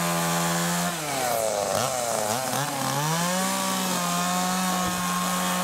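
Chainsaw running at high revs. From about a second in, its pitch sags and wavers as it cuts into the carving log, then it climbs back and holds steady at full speed.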